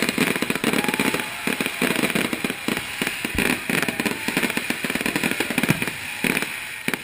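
Fireworks display: a dense, rapid barrage of aerial shell bursts and crackle, with the bangs packed many to the second. It stops right at the end.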